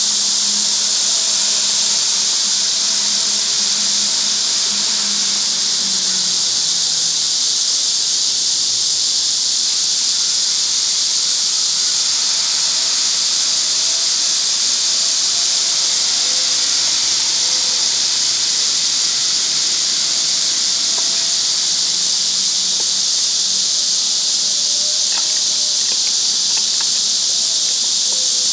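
Steady, high-pitched insect drone, like a summer insect chorus, with a few faint clicks near the end.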